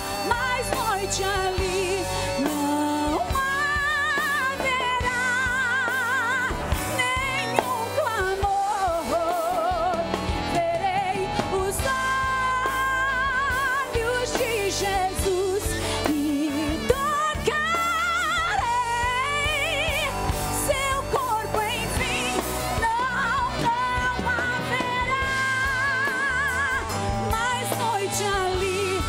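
A woman singing a Portuguese gospel song in long held notes with wide vibrato, accompanied by a church orchestra.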